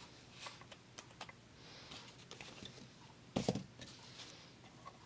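Light clicks and taps of small plastic parts, spacers and screws being handled and fitted together by hand, with a louder cluster of clicks about three and a half seconds in.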